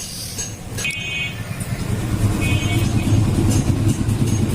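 A motor vehicle engine running, growing louder about two seconds in, with two short high-pitched tones about one and two and a half seconds in.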